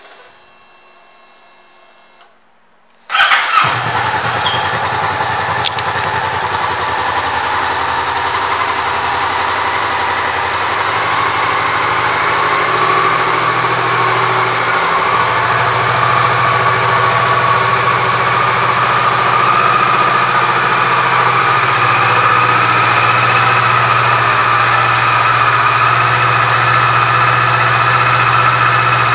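2015 Kawasaki Vulcan S's parallel-twin engine: a faint hum with the ignition on, then about three seconds in the engine starts up and settles into a steady idle.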